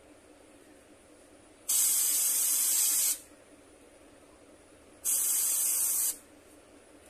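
Airbrush spraying paint in two short bursts of hiss, the first about a second and a half long, the second about a second, each starting and stopping abruptly.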